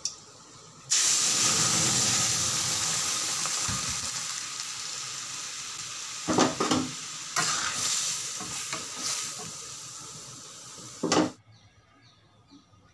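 Hot oil with a tempering of dried red chilli, ginger and panch phoron sizzles loudly in a wok as cooked mung dal is poured in, the hiss slowly dying down. A few sharp knocks of a utensil against the pan come midway and near the end, and the sizzle cuts off suddenly.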